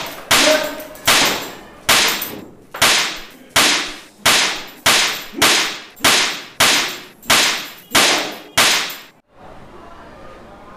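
A belt lashing again and again: about a dozen sharp whip-like cracks, roughly one every 0.7 seconds, each trailing off. The cracks stop about nine seconds in.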